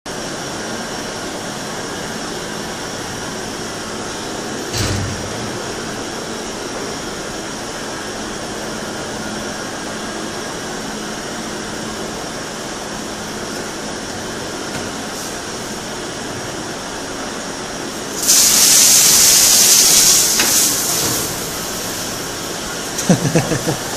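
A steady background drone, a single thump about five seconds in, then a loud spraying hiss that starts suddenly about eighteen seconds in and lasts about three seconds.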